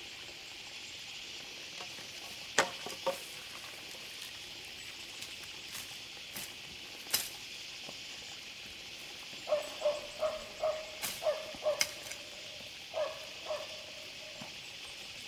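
A steady high hiss with a few sharp taps, and about two-thirds of the way in a quick run of short, repeated animal calls, followed by two more.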